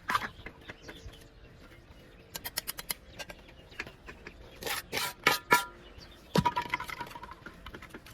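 Mason's hand tools working mortar and brick: a quick run of light clicks and scrapes, then several sharp metallic knocks, and one loud clank that rings briefly.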